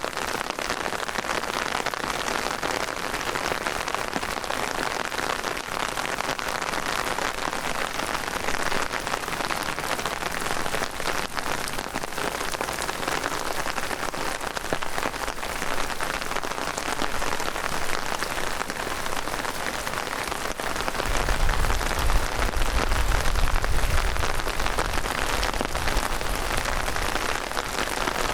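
Heavy rain pouring steadily, a dense even hiss of drops. About three quarters of the way through, a deep low rumble joins in for several seconds and then eases off.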